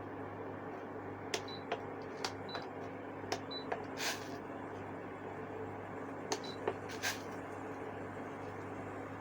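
Induction cooker running with a steady hum while water heats in the pot on it, with about ten irregular sharp ticks and two brief hisses from the heating pot.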